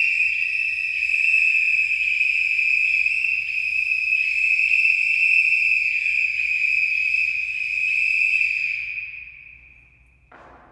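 Several police whistles blown together in one long, shrill, steady blast, with entries overlapping at slightly different pitches; the sound fades out about nine seconds in. A single knock follows near the end.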